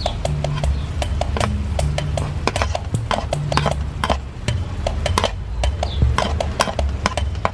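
Background music with a steady beat and a repeating bass line, with sharp clicks and scrapes of a utensil pushing chopped green peppers from a wooden bowl into a cast-iron wok.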